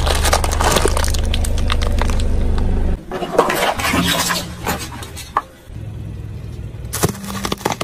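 Car tyre rolling over and crushing small plastic and candy objects: repeated cracking and crunching of plastic. Under the first few seconds runs the steady hum of the car's engine, and the sound changes abruptly twice as short clips cut from one object to the next.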